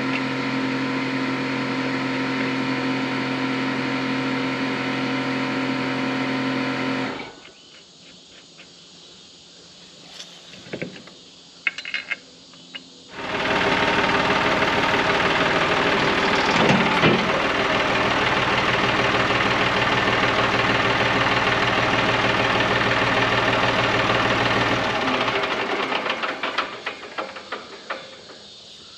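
A motor-driven machine running steadily, stopping about seven seconds in with a few clicks in the quiet that follows, then running again, louder and noisier, from about thirteen seconds in and fading out near the end.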